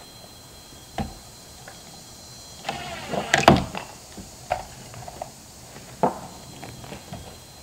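Cordless drill running briefly about three seconds in, driving a screw into a wooden board. A few single sharp knocks come before and after it.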